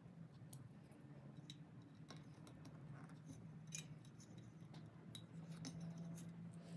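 Near silence with scattered faint clicks and taps as a painted steel toy bracket and a white plastic part are handled and fitted together, over a low steady hum.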